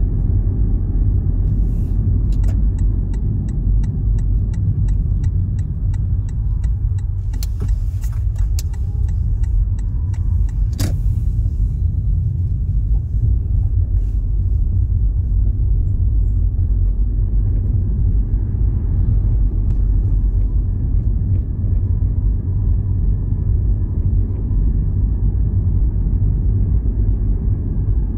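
Steady low rumble throughout. In the first third there is a run of faint, quick high ticks, about three a second, followed shortly after by a single sharp click.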